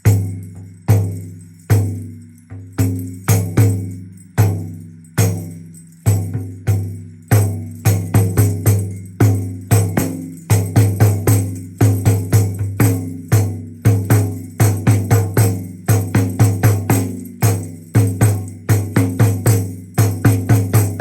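A hand-held drum struck over and over, each stroke leaving a low ringing tone that dies away. The strokes come about once a second at first, then quicken into rapid pairs and clusters from about a third of the way in.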